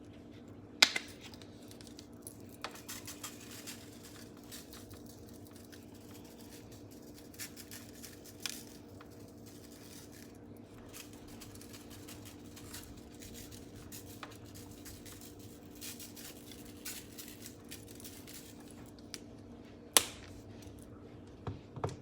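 Seasoning salt being shaken from its container over raw chicken wings in a foil pan: scattered light taps and scratchy rattles, with two sharp clicks, one about a second in and one near the end. A steady low hum runs underneath.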